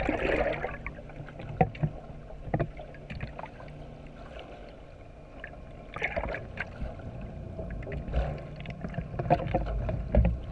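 Sportfishing boat's engine droning steadily, with scattered knocks and clatter on deck.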